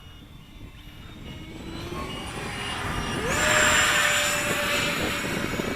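Electric ducted fan of a 64 mm EDF model airliner in flight, its whine growing louder and then jumping up in pitch about three seconds in as it goes to full power.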